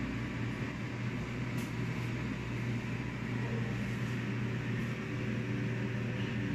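Steady low hum of a household appliance's fan running, with a few faint clicks.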